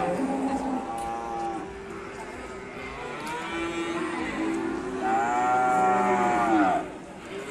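Cattle mooing: several calls, some overlapping at different pitches, with the longest and loudest call from about five seconds in, lasting almost two seconds and dropping in pitch as it ends.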